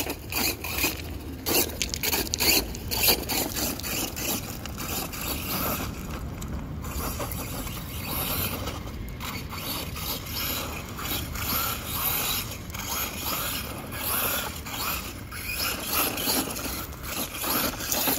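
Redcat Volcano EPX RC monster truck driving over loose gravel: its tyres crunch and scrape through the stones in uneven bursts, loudest in the first few seconds.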